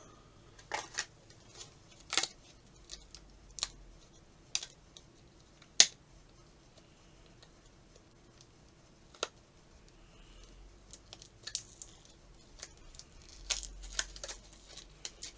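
Irregular sharp clicks and taps of hard plastic as an action figure and its accessories are handled and fitted together, with one loud snap about six seconds in.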